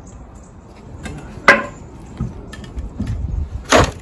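Sharp metal clanks and knocks from a heavy Unimog truck wheel and hand tools being worked at the hub and wheel nuts as the wheel is refitted. Two loud clanks, about one and a half seconds in and near the end, with lighter knocks between.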